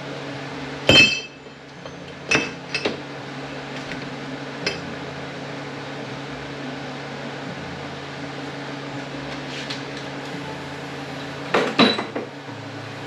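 Metal parts of a Toyota A340F automatic transmission being handled and set down on a workbench: a loud, ringing clank about a second in, a few lighter clinks after it, and another clatter near the end.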